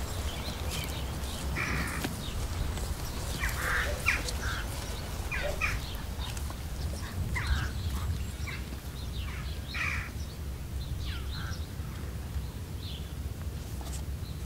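Crows cawing, short calls repeated about every two seconds, over a steady low outdoor rumble.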